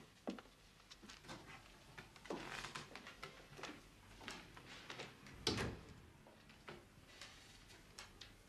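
Quiet room sounds: scattered soft clicks and knocks of people moving about, with one louder thump about five and a half seconds in.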